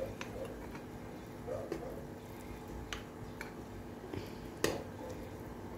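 Occasional sharp clinks of a metal ladle against a stainless steel pot and glass jar as hot peach jam is spooned into the jar, the loudest a little past halfway, over a faint steady hum.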